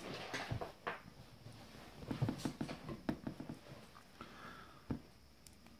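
Hands handling a knife and the phone box: scattered light clicks, taps and scraping, with a quick run of small clicks about two to three seconds in.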